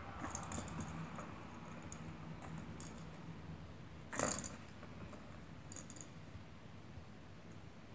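A kitten's claws scratching and pawing at a round cardboard scratcher: a few short, scratchy rasps, the loudest about four seconds in, over a faint steady low hum.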